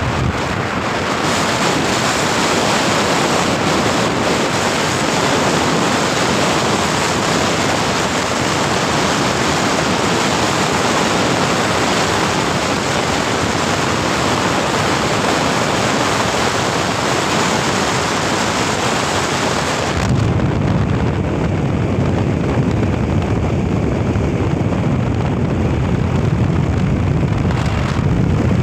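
Wind rushing over the microphone with road noise from a vehicle moving at speed. About two-thirds of the way through, the sound changes suddenly from a bright hiss to a duller, lower rumble.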